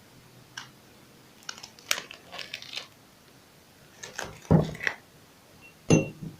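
Kitchen handling noises: scattered clicks, rustles and light knocks, then two heavier knocks of things being set down on a hard surface, the last one ringing briefly.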